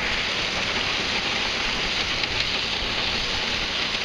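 Combine harvester working through a cornfield: a steady, even rushing hiss of machine and crop noise with no distinct engine note.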